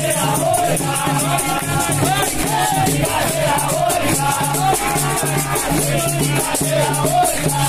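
Capoeira roda music: berimbaus played in a steady rhythm with caxixi rattles shaking, under voices singing.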